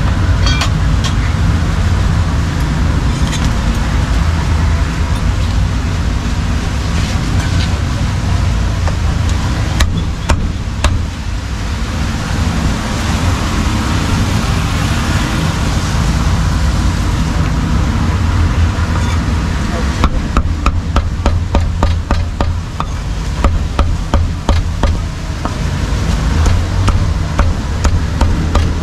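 Heavy meat cleaver chopping cooked meat and offal on a thick wooden chopping block: a few strikes about ten seconds in, then a fast run of chops through the last third. Steady road traffic noise underneath.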